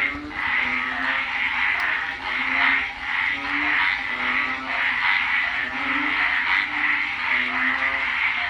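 A dense chorus of frogs in the rain: a steady high-pitched din, with short, deeper croaks repeating about once or twice a second underneath.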